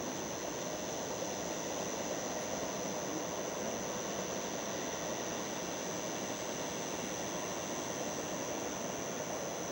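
Distant Boeing 737-300 on final approach, its CFM56 turbofans a steady even roar with a constant thin high whine over it.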